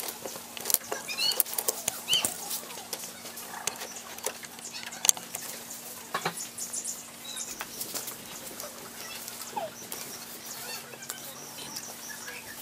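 Scattered small plastic clicks and taps of keyboard keys and parts being handled and fitted, with a few short rising chirps from birds in the background and a faint steady hum.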